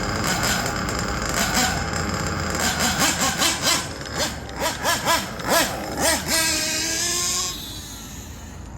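Small nitro (glow-fuel) engine of a Kyosho Inferno NEO ST 3.0 RC truck running, then revved in a string of quick throttle blips and held at a high rev. The sound drops away suddenly about seven and a half seconds in.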